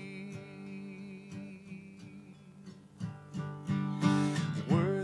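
Acoustic guitar strummed as accompaniment to a worship song. A sung note is held and fades over the first couple of seconds, then the strumming picks up and grows louder about three seconds in.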